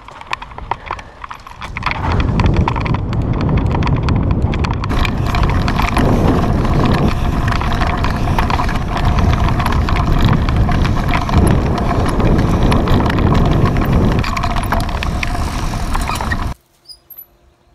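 Mountain bike ridden fast over rough dirt and grass, heard from a camera mounted on the rider or bike: loud wind buffeting on the microphone mixed with a dense clatter and rattle from the bumps. It starts quieter with scattered clicks, swells about two seconds in, and cuts off abruptly near the end.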